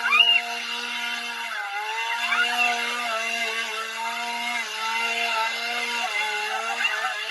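Chainsaw engine running at high revs, its pitch dipping and rising several times as the throttle is worked.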